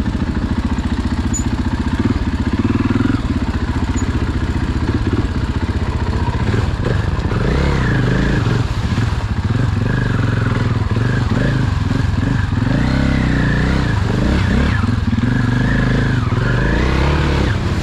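Dirt bike engine running under way, its pitch rising and falling with the throttle.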